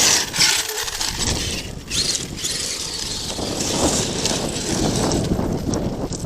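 Arrma Kraton 8S electric RC monster truck being driven on dirt: a rough, continuous rush of tyres and dirt, loudest in a sharp burst right at the start.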